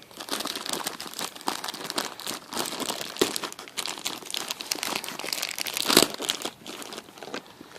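Plastic FedEx poly mailer bag crinkling and rustling continuously as it is torn open and handled, with many sharp crackles and a loud crinkle about six seconds in.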